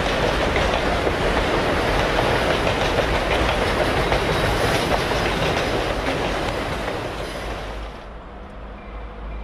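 Freight train of loaded autorack cars rolling past, the wheels clicking over the rail joints. The sound fades, then drops off sharply about eight seconds in.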